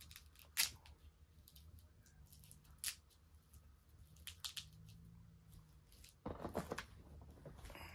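Quiet handling of an Akkar Churchill 612 12-gauge shotgun and its Velcro-backed side-saddle shell holder loaded with heavy slugs: a few sharp clicks and taps, then a short scraping rustle about six seconds in.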